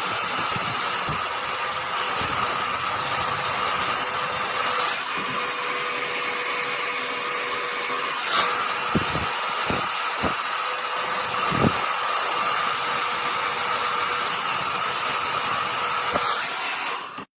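Hair dryer running steadily: a rushing blow of air with a steady motor whine, and a few light handling knocks. It cuts off abruptly near the end.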